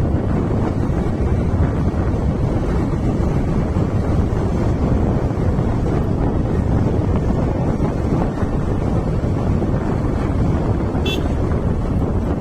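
Wind buffeting the microphone over the steady low rumble of a moving vehicle. There is one brief high-pitched blip about eleven seconds in.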